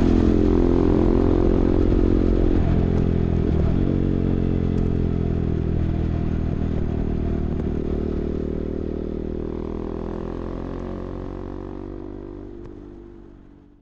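KTM RC 390's single-cylinder engine running through an SC Project replica slip-on exhaust at highway speed, with brief dips in pitch near the start and about three seconds in, like gear shifts. The sound then holds steady while fading out gradually over the last several seconds.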